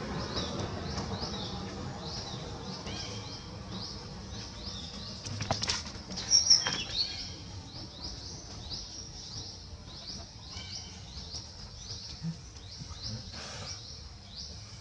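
A bird chirping over and over, about three short high chirps a second, with a brief louder squeak and scuffle about six seconds in.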